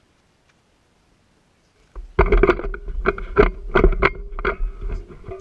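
Near silence, then about two seconds in a run of loud knocks, bumps and rubbing as an airsoft rifle with a camera mounted on it is handled against a wooden plank tower, over a low rumble.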